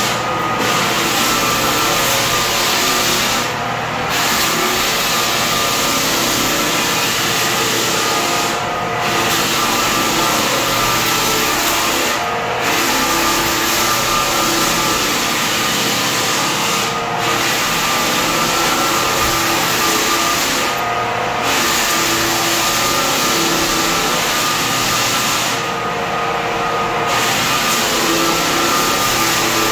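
Drum floor sander sanding a knotty yellow pine floor: a steady motor whine under the loud hiss of the abrasive drum on the wood. The hiss drops away for a moment about every four to five seconds.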